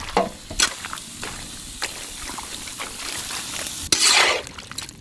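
Thick, wet hand-ground chilli paste being scraped out of a steel bowl onto chopped raw chicken in an iron wok, with soft wet plops and a few small clicks, then a louder wet squishing rustle about four seconds in as the paste-coated chicken is worked.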